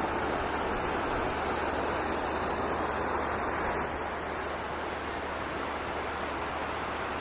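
Steady rushing of flowing water, an even noise without distinct splashes that gets slightly quieter about four seconds in.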